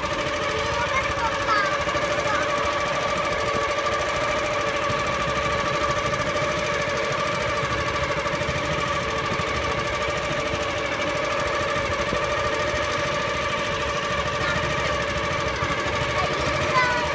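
Boat engine running steadily with a fast, even beat and a constant drone.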